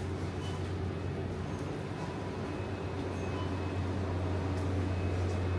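Steady low hum of supermarket refrigeration and ventilation over a continuous background hiss, with a few faint clicks.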